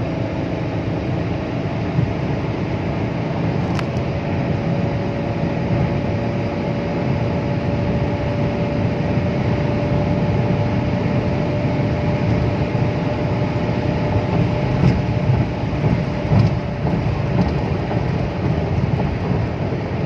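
Volkswagen Vento's 1.6 TDI diesel engine held steady at about 3,000 rpm during a turbocharger adaptation run, heard from inside the cabin.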